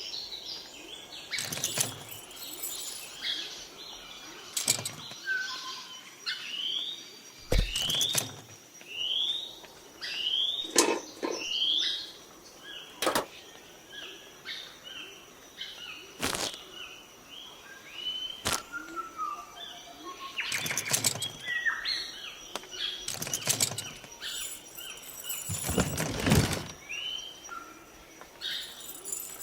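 Small birds chirping, with many short rising calls. Scattered sharp knocks or taps come every second or few seconds throughout.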